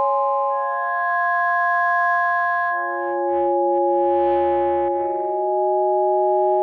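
Synthesizer music: slow, sustained chords of steady tones over a low drone, changing chord about every two to three seconds.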